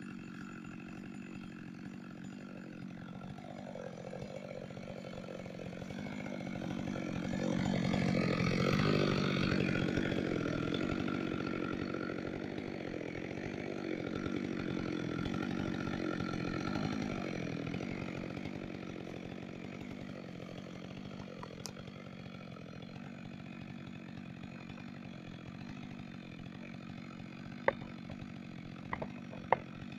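Chainsaw engine running steadily at an even pitch. It grows louder about a quarter of the way in, stays up for roughly ten seconds, then settles back. A few sharp clicks sound near the end.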